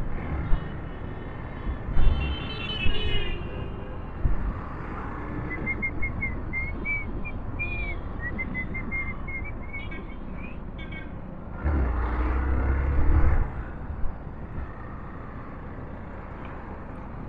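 Motorcycle on the move: steady engine, road and wind noise with traffic around. A brief high tone comes about two seconds in, and a string of short warbling high tones runs through the middle.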